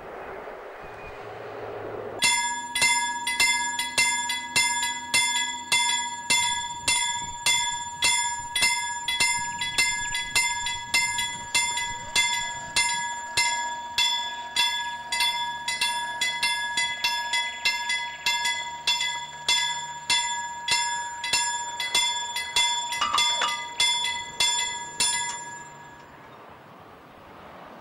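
Level-crossing warning bell on the signal post ringing in rapid, even strokes, nearly two a second, each with a ringing tone. It starts about two seconds in and stops shortly before the end. It is the crossing's warning that a train is approaching.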